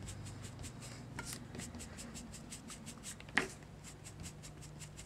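Small ink-loaded sponge dabbed on a paper postcard in quick soft taps, about four a second, with one sharper tap about three and a half seconds in.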